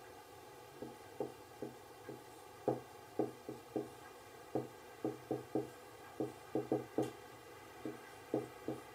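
Marker pen writing on a whiteboard: a string of short, irregular taps as each stroke is put down.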